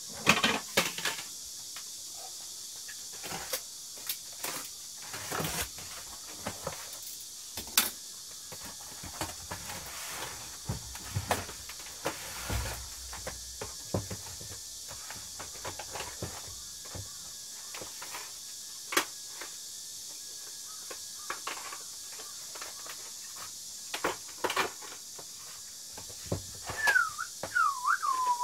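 Plastic cassette tape cases clicking and clacking as they are taken from a cardboard box and set onto wooden shelves, with scattered sharp knocks throughout. Near the end comes a brief wavering squeak.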